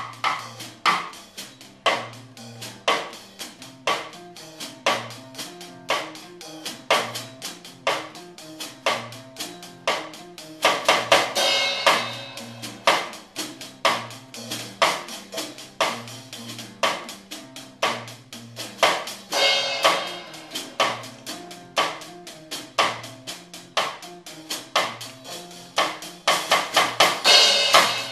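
A child playing a drum kit in a steady beat, snare and cymbal strikes about once a second with lighter hits between, breaking into busier cymbal fills about 11, 19 and 27 seconds in. An acoustic guitar plays along underneath with notes that step up and down.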